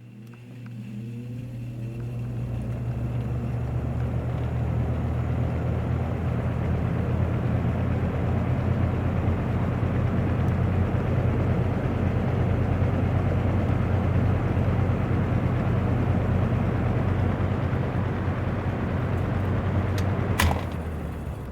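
A 1998–99 Lasko box fan starting up on its low setting: the motor hum comes in at once and the rush of air builds over the first few seconds as the blades spin up, then runs steadily. Near the end a click comes and the sound starts to die away. The unoiled motor sounds a little dry to its owner.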